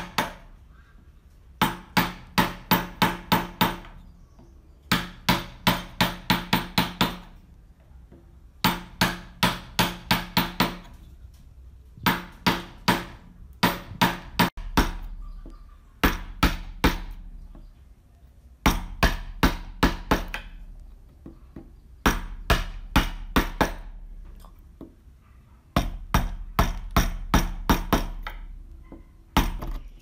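Wood chisel being struck to chop out the throat of a wooden hand-plane body: quick runs of six to eight sharp blows, about three a second, with pauses of a second or so between runs.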